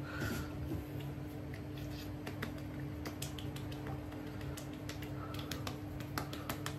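Hands patting serum into facial skin: irregular light, tacky clicks of fingertips and palms on the face, several a second, over a steady low hum.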